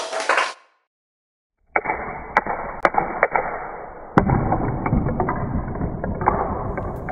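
Steel ball bearings of a four-stage neodymium-magnet Gauss gun clacking into the magnet stacks and each other: a run of sharp clicks, then a louder knock about four seconds in as the launched ball hits cut-out robot figures and knocks them over. A noisy burst dies away in the first half second.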